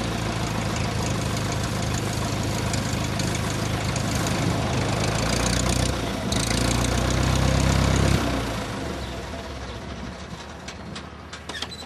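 Light aircraft's piston engine and propeller running close by on its landing approach, over a haze of wind noise. The engine sound drops away about eight seconds in and fades.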